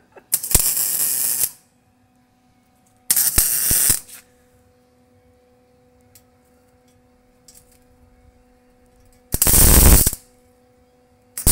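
Welder laying short beads on a car's exhaust pipe to seal leaking holes: four loud bursts of about a second each, with a steady electrical hum in the pauses.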